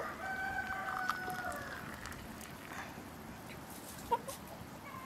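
A rooster crowing: one drawn-out call lasting about two seconds, then a short cluck a little after four seconds.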